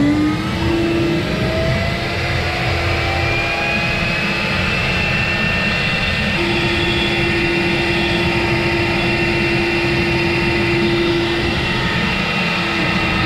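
CNC router spindle with a 1/8-inch bit spinning up and cutting a wooden slab on a 3D roughing pass. A steady high whine rises in pitch over the first couple of seconds, then holds under the noise of the bit chewing through the wood.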